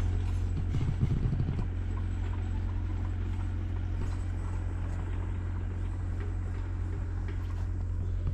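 Footsteps of someone walking a park path, faint irregular steps about once a second, over a steady low rumble.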